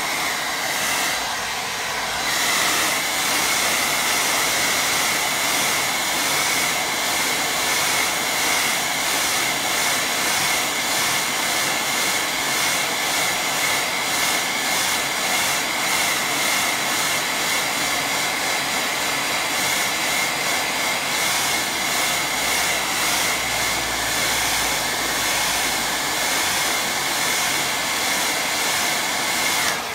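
Hand-held hair dryer running on high, blowing on a wet watercolour painting to dry the paint: a steady rush of air with a constant high whine. It cuts off at the very end.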